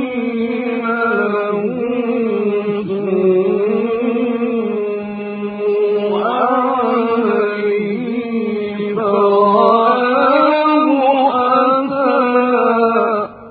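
A male Quran reciter chanting a long, ornamented melodic phrase in the mujawwad style. His voice wavers and glides up and down, jumps to a higher pitch about six seconds in, swells louder later on, and breaks off sharply just before the end.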